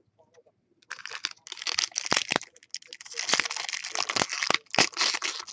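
Foil baseball-card pack wrapper crinkling and crackling as a pack is handled and opened, starting about a second in, with many sharp cracks.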